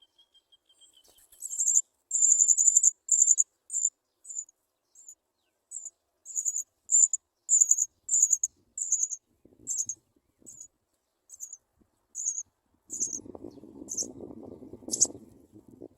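House sparrow nestlings begging: a long series of short, high, thin peeps at about two a second, starting a second or so in. Near the end there is a soft rustling of nest material.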